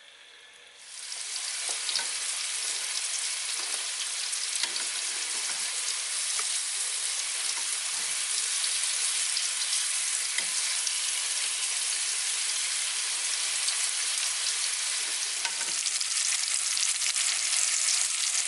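Chicken sizzling as it fries in hot oil in a pan. The sizzle comes up quickly about a second in and then runs as a steady hiss.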